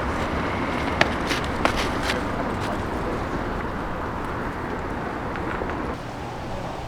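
Steady background noise with a few sharp clicks between one and two seconds in; the noise drops a little near the end.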